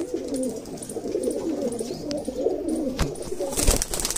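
Domestic pigeons cooing, a continuous run of wavering coos. About three seconds in there is a knock, then a brief flurry of wing flaps as a hand-held pigeon is released.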